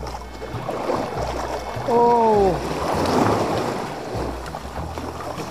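Surf surging and breaking against the hull of a small outrigger canoe, with wind on the microphone. A short falling pitched sound cuts through about two seconds in.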